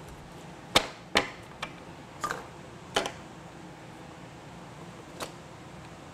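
A few sharp knocks and clicks, the two loudest about a second in and a last one near the end: a deck of punched cards being squared up and loaded into the IBM 082 card sorter's feed hopper. The sorter itself is not running.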